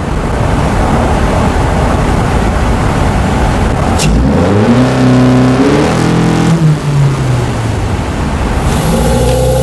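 2022 Honda Civic Sport's engine and AEM short ram intake heard from under the hood while driving: intake and engine noise, with a brief click about four seconds in, then the revs climbing, holding for a moment and falling away around seven seconds, and climbing again near the end.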